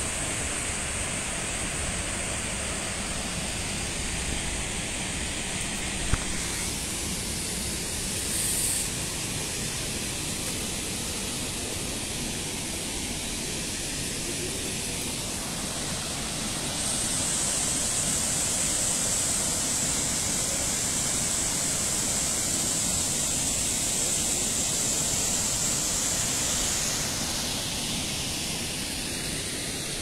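Steady rush of water from the Ouzoud waterfalls pouring into their plunge pool, with a single sharp click about six seconds in.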